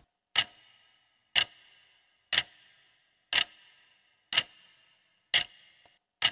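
Clock-tick sound effect for a countdown timer: sharp, evenly spaced ticks, one a second, each with a short ringing tail.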